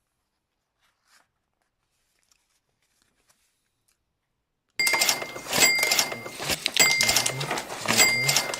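Near silence with a few faint rustles and clicks, then, about five seconds in, a loud bright chiming sound starts suddenly and repeats roughly once a second over a low hum.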